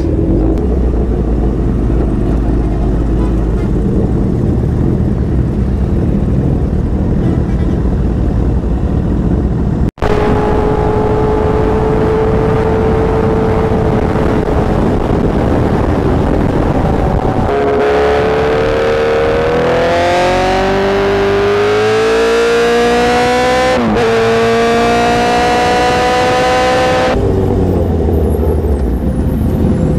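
Superbike engine heard from the rider's own bike, with wind rushing over the microphone. First a low rumble; then a steady high engine note, which climbs in pitch as the bike accelerates hard, dips briefly at a gear change and climbs again, before the sound falls back to a low rumble near the end.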